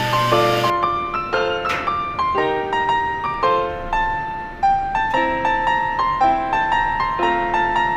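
Background music: a piano-led tune of quick, changing notes, with a brief swish about two seconds in.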